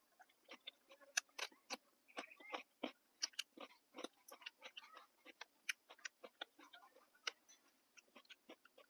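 Faint eating sounds: irregular soft clicks and smacks of someone chewing.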